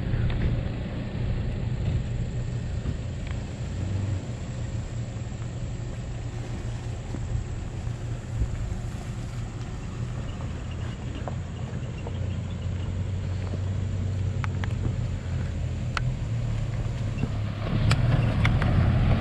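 4x4 SUV engines running with a steady low rumble, growing louder near the end as a Mitsubishi Pajero drives up close, with a few light ticks over the top.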